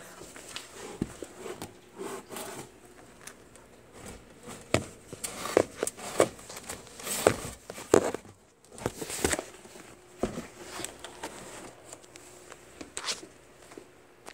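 Cardboard box being jumped on and crushed: a run of irregular thumps with crinkling and tearing of the cardboard, the heaviest cluster in the middle.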